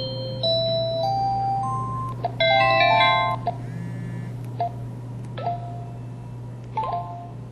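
Samsung SCH-V420 mobile phone playing short electronic effect-sound jingles: a stepping run of beep tones, a dense flourish of notes about two to three seconds in, then a few single short tones. A steady low hum lies underneath.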